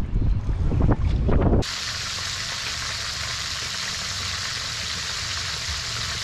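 Wind buffeting the microphone aboard a moving boat, then an abrupt cut about a second and a half in to the steady sizzle of fish frying in hot oil.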